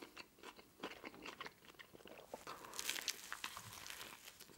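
Close-miked eating: faint small mouth clicks, then a bite into a toasted pizza sandwich about three seconds in, followed by chewing.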